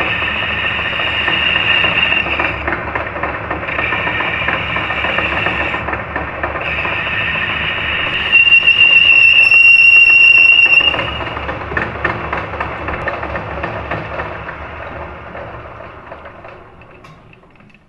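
Metal lathe boring out a motorcycle wheel hub's bearing bore: the tool bit cuts inside the spinning hub with a screeching, chattering whine, the stage where the bore is opened up to take a press-fit sleeve for the bearing. A piercing high squeal rings for about two seconds in the middle, and the cutting sound then fades away towards the end.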